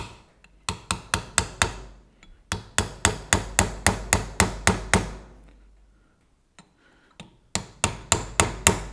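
Hammer tapping a punch against the inner race of a truck's outer CV joint, driving the race back into position within the outer race so the ball bearings can be fitted. The taps come in three quick runs of about four or five a second, each tap sharp and metallic with a short ring.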